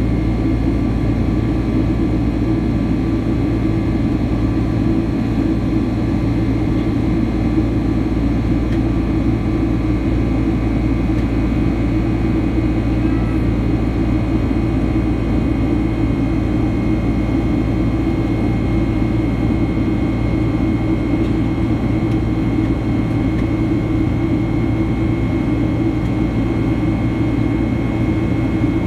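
Steady engine roar of a Boeing 767-300ER's turbofans heard from inside the cabin during the climb after takeoff, a heavy low rumble with a few faint steady whining tones over it.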